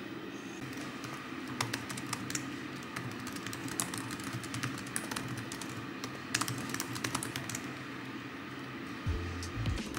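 Typing on a laptop keyboard: quick, irregular key clicks over a steady low hum.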